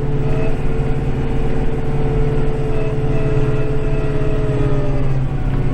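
Kubota tractor's diesel engine running steadily, heard from inside the cab: a low drone with a steady whine over it that eases slightly lower in pitch near the end.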